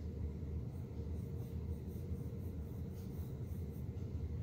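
Paintbrush stroking acrylic paint onto a canvas panel: a soft, scratchy rubbing.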